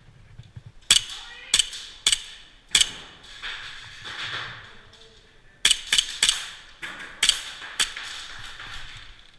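Airsoft guns firing single shots: a string of sharp cracks about half a second apart, then, after a short pause about halfway through, another string of cracks.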